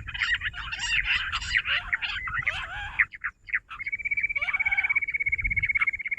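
Jungle bush quails calling: a jumble of overlapping rapid chirps for about three seconds, then, after a short gap, a steady, fast trill on one high note that keeps going.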